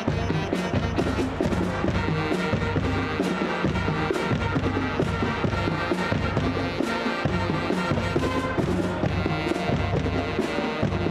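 Student wind band playing an upbeat tune: trumpets, trombones, saxophones and flutes over marching bass drums, snare and tenor drums, with a steady drum beat.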